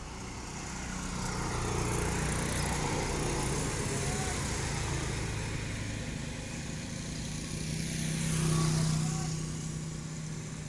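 Engines of vehicles passing on the road, swelling and fading twice, with the louder pass near the end.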